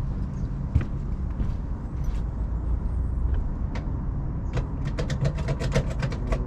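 Steady low machine hum with scattered sharp clicks and a quick run of clicks and rattles about five seconds in, as an air conditioner's electrical disconnect is handled and its pull-out plugged back in.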